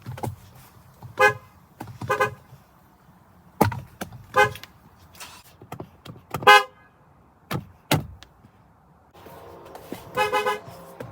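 Car horn giving a series of short toots, about five or six, the loudest about six and a half seconds in and a quicker run near the end. A few sharp clicks fall between the toots.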